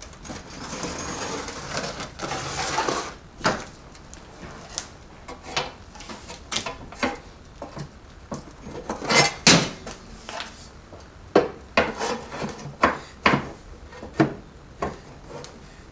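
Metal parts and hand tools being handled while a transfer case is taken apart: a scraping for the first few seconds, then many separate knocks and clinks of metal on metal at uneven spacing.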